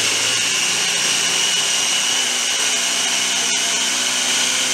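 Electric mini food processor running steadily, rough-chopping garlic cloves and chilies, with a split-second break about three and a half seconds in.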